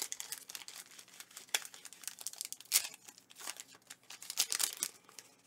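Foil wrapper of a Pokémon TCG booster pack crinkling and tearing as it is opened by hand, in irregular crackles with a few sharper snaps, the loudest just under three seconds in.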